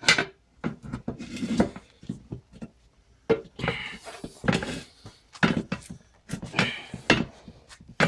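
Steel tire iron clanking and scraping against a steel wheel rim while a tire bead is pried over the rim by hand. Many sharp metallic knocks, mixed with several longer scraping passes.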